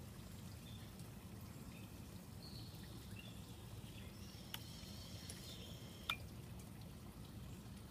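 Quiet outdoor background with faint high chirps, broken by two sharp clicks, one about four and a half seconds in and a louder one about six seconds in.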